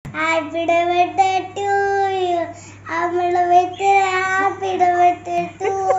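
A young boy singing, two drawn-out phrases with a short pause between them about halfway through.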